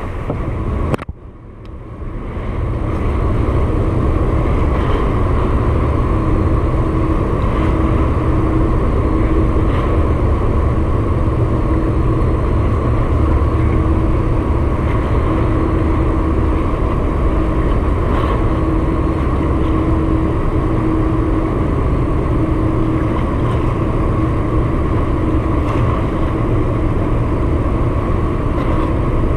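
Steady low mechanical drone with a faint hum running through it, like an engine or machinery running, with a brief drop about a second in.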